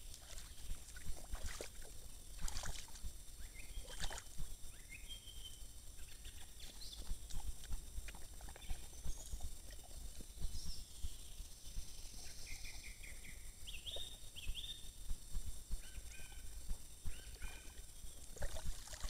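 A wolf lapping water and splashing as it moves and lies down in a shallow pool: scattered soft splashes and knocks over a steady low rumble. A few short high chirps sound in the second half.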